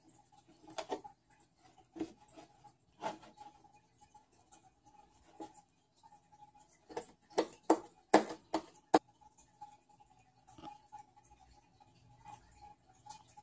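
Scattered light knocks and clicks of a plastic milk jug and a plastic sippy cup being handled on a tabletop, with a quick run of sharper clicks about seven to nine seconds in, over a faint steady hum.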